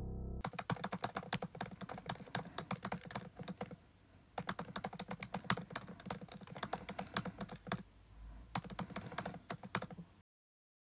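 Rapid keyboard typing clicks, the sound effect for text being typed out on screen letter by letter. They pause briefly about four seconds in and stop abruptly about ten seconds in.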